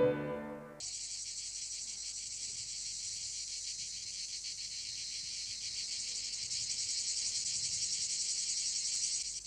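A piano phrase ends in the first second. Then comes a steady, dense, high-pitched chirring of insects that grows slightly louder and cuts off just before the end.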